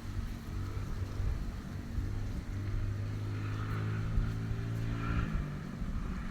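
A motor engine running at a steady pitch that shifts lower a little after five seconds in, over a low rumble of wind on the microphone.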